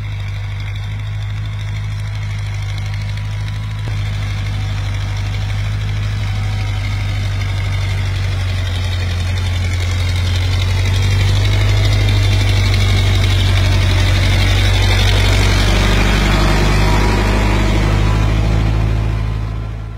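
Powertrac 4455 tractor's diesel engine running steadily under load as it pulls a tillage implement through the soil, growing louder as the tractor comes close. The sound cuts off suddenly at the very end.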